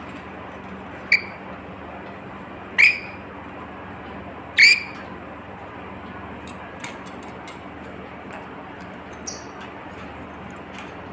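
Pet lory parrot giving three short, sharp squawks a couple of seconds apart, each one louder than the last, over a steady hiss. A few faint clicks follow.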